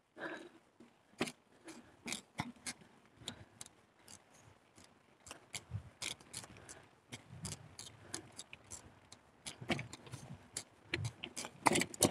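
Carrera Hellcat mountain bike rattling as it is ridden over a rough trail: irregular sharp clicks and knocks with some low bumps, getting louder and busier near the end.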